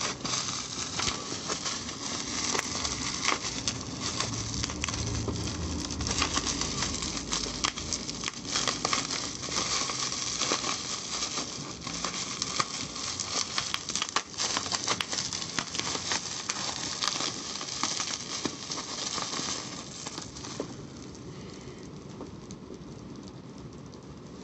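Packaging being unwrapped by hand: dense, irregular crinkling and crackling of plastic and cardboard, dying down about 20 seconds in.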